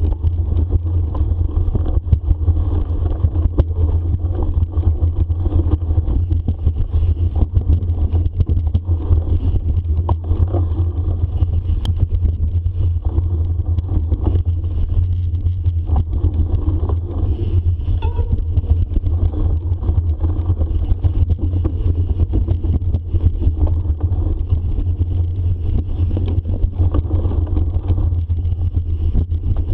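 Steady low rumble of wind and motion noise on the microphone of a camera riding on a bicycle, with small knocks and rattles from the bike moving over the trail.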